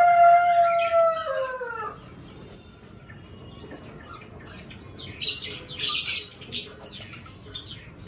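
Birds calling in a small aviary. First comes one long, drawn-out call that falls away at the end, then a quick cluster of high, downward-sweeping chirps about five to seven seconds in, from the small finches and Java sparrows.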